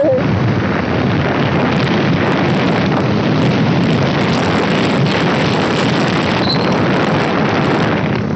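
Loud, steady wind rush on the microphone of a motorcycle ridden at speed, with the engine running underneath.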